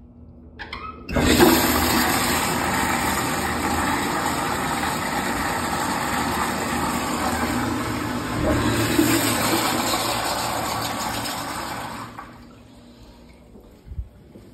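Stainless steel Acorn trough urinal flushing: a sudden rush of water starts about a second in, runs steadily for about eleven seconds and then tapers off. A short knock follows near the end.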